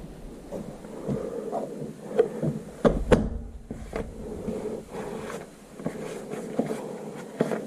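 Irregular knocks, clicks and clatter of tools and parts being handled, with a few sharper knocks about two to three seconds in.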